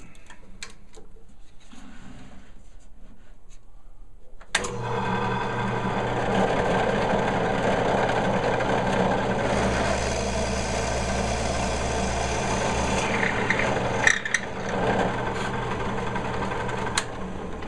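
A few light clicks as the drill bit is fitted in the drill press chuck, then the benchtop drill press switches on about four and a half seconds in and runs steadily while boring holes in the walnut board, with a couple of sharp knocks later on.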